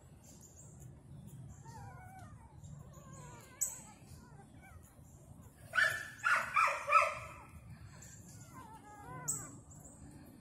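Newborn American Pit Bull Terrier puppy, eleven days old, whimpering and squeaking in thin wavering cries while held in the hand, with a louder run of four short calls about six seconds in.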